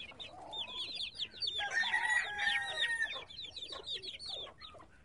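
Chickens clucking with many quick high calls, and a rooster crowing once from about a second and a half to three seconds in.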